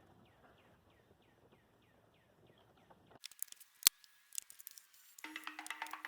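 Faint, rapidly repeated short chirps from a bird for about three seconds. The sound then cuts to a few sharp clicks, and music with a wood-block beat starts near the end.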